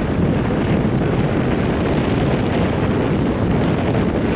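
Wind buffeting the microphone over the steady rush of breaking ocean surf.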